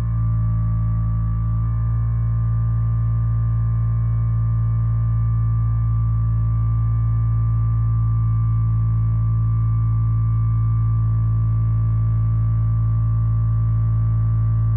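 HyperIce Vyper 2 vibrating foam roller running with a person's legs resting on it: its vibration motor gives a loud, steady low hum with a fainter higher tone above it.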